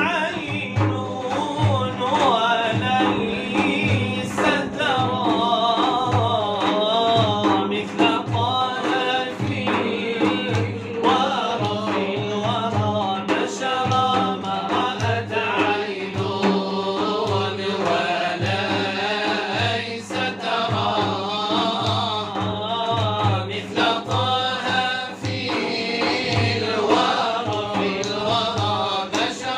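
Arabic devotional nasheed: male voices singing long, ornamented melodic lines over a steady drum beat.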